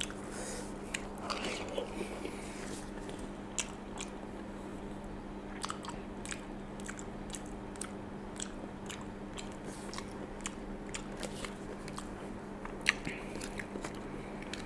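A person eating baked pasta close to the microphone: chewing and mouth sounds with irregular clicks of a plastic spoon against a foil tray, the sharpest click about 13 seconds in. A steady low hum runs underneath.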